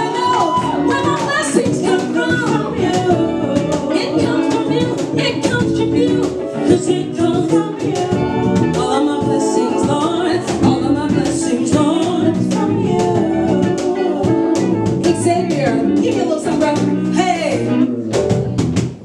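Live band music: a woman's lead vocal with a backing singer, over electric guitar and hand-played percussion. The level dips briefly near the end.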